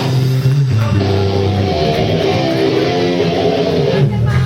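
Live band music led by strummed guitar with bass, playing steady sustained chords.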